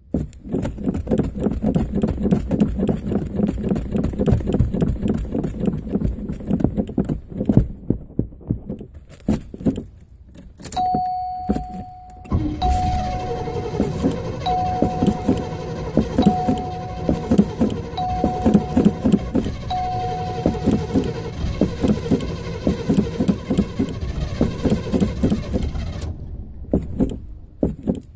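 Car engine being cranked on the starter in long attempts, cold after sitting for a week, with a short pause between cranks and no steady running. During the second attempt a dashboard warning chime sounds six times.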